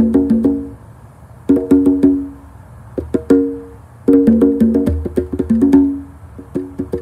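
A pair of congas played with bare hands: quick runs of strokes with ringing drum tones, in phrases of a second or two broken by short pauses.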